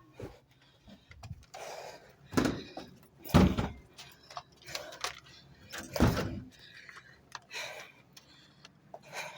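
A run of knocks and thumps at irregular intervals, the two loudest about three and a half and six seconds in.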